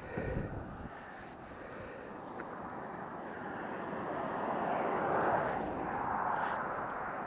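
A vehicle passing by, its noise swelling to a peak about five seconds in and then easing off.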